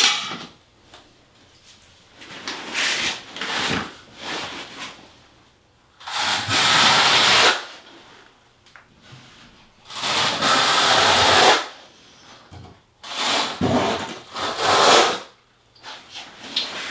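Steel notched trowel scraping across thinset mortar on a shower wall, combing it into straight directional ridges in several long strokes of a second or two each.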